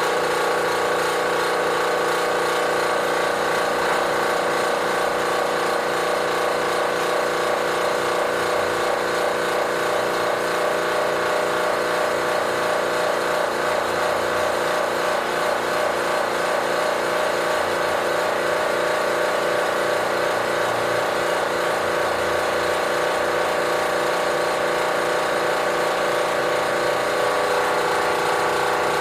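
Industrial air compressor running steadily: a constant mechanical hum with a fast, fine rattle, unchanging in level.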